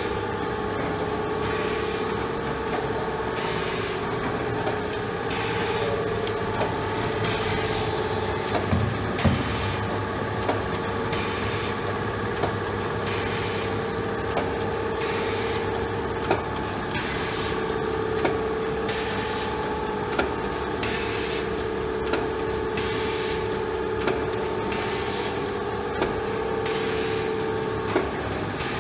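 Special Adhesive Process Machine MkIII F1 running steadily in production with a continuous mechanical hum. A short, sharp click repeats about every two seconds as the machine cycles.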